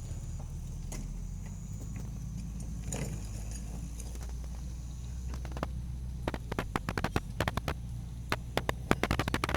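A vehicle's engine with a steady low rumble, joined about six seconds in by a quickening run of sharp clicks and crackles that grows denser toward the end.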